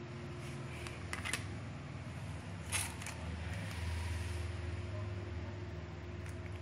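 Hands handling small camera accessories and their packaging: a few light clicks about a second in and a short rustle nearly three seconds in, over a steady low hum.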